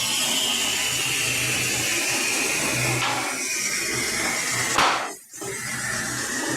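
Electric saw running through MDF, its whine slowly falling in pitch. About five seconds in the sound spikes briefly, drops out for a moment and then picks up again.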